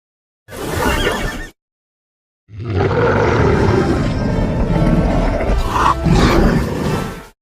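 Wolf calls presented as an African wolf's: a short rough call of about a second, a gap of dead silence, then a long harsh, noisy call of nearly five seconds that rises in pitch briefly near its end.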